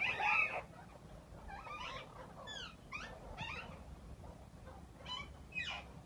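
Parrots calling: a run of short, harsh squawks, each falling in pitch. The loudest comes right at the start and others follow every half second to a second.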